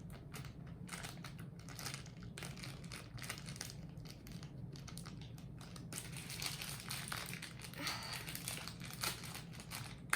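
Plastic packaging crinkling and crackling as it is handled and pulled open by hand, irregular and a little busier in the second half.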